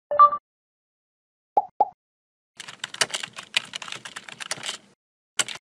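Computer keyboard typing sound effect: a quick run of key clicks lasting about two seconds. It is preceded by a short, loud tone and two single clicks, and a last short burst of clicks comes near the end.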